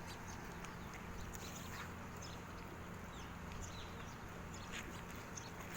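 Outdoor ambience: scattered small birds chirping over a steady low hum.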